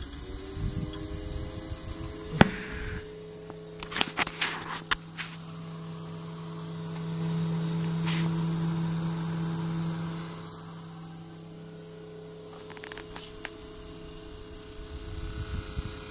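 Homemade ozone generator running with a steady hum, its pitch rising just at the start; the hum grows louder for a few seconds in the middle. A few sharp clicks and knocks come about two and four to five seconds in.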